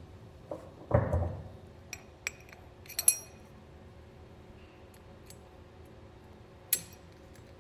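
Sharp metal clinks and clicks as a forged-steel gooseneck safety chain loop and its pin and spring clip are handled and fitted back together, with a duller knock about a second in. The clicks come singly, a few in the first three seconds and one more near the end.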